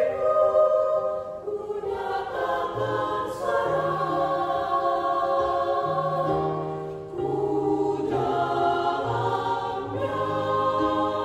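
A mixed-age, mostly women's church choir singing a hymn in several parts, holding long chords in phrases, over a keyboard accompaniment playing steady low notes. Brief dips between phrases come about one and a half seconds in and again past the middle.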